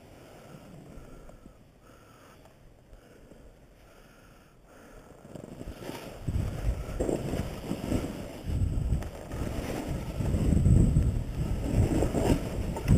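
Wind buffeting the microphone of a rider-mounted camera, mixed with a snowboard sliding over snow. It is faint for the first few seconds, then grows louder in uneven surges from about halfway as the riding picks up.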